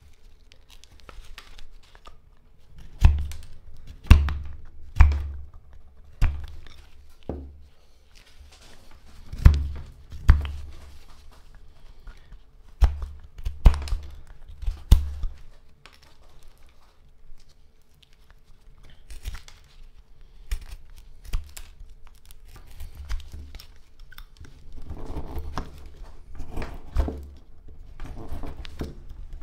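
Hook knife paring slices off very hard black locust (Robinia) wood, with tearing, scraping cuts. A series of sharp knocks sounds in the first half, and a run of quicker scraping cuts comes near the end.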